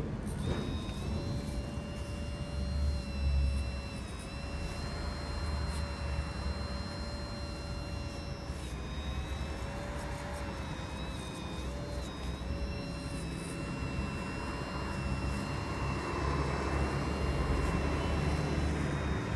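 Hydraulic pump of an RC excavator whining steadily, its pitch dipping briefly now and then as the boom and bucket move, over a low rumble.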